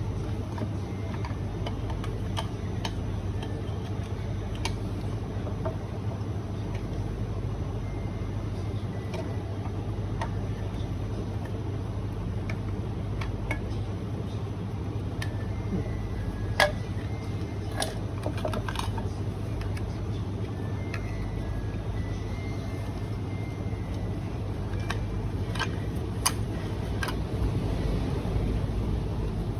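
Scattered small clicks and taps of Eureka coffee grinder parts being handled during cleaning, a few in quick succession past the middle and again near the end, over a steady low hum.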